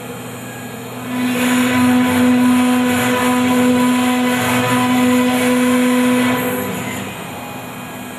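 A CNC router's spindle runs with a V-bit engraving into a wood board. About a second in, the sound swells into a louder steady whine with cutting noise as the bit works along the groove. It drops back to a quieter running hum after about five seconds.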